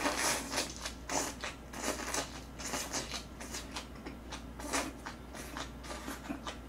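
Close-miked chewing and mouth smacking as green onion kimchi is eaten, many short irregular clicks and crunches.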